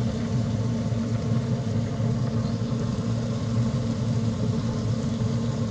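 A small motor humming steadily and low, without a break.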